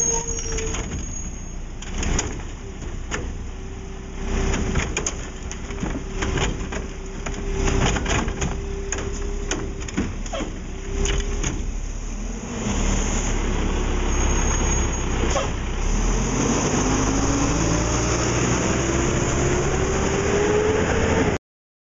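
McNeilus front-loader garbage truck with a Curotto Can: a steady whine with repeated clanks and knocks as the can's arm handles a poly cart. Then the truck's diesel engine runs louder, rising in pitch over the last few seconds as the truck pulls away, and the sound cuts off suddenly.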